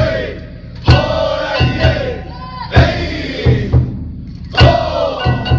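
Japanese festival music: drum strokes in a repeating pattern of a single beat followed by two quicker ones, under a pitched melody whose notes slide downward.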